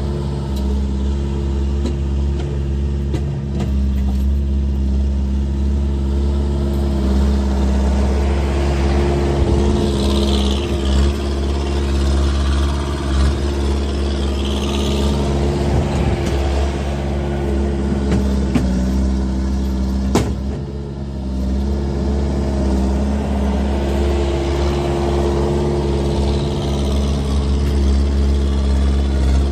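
Skid steer engine running steadily and loudly without a proper exhaust fitted. A rising-and-falling whine rides over it twice, about a third and half way through.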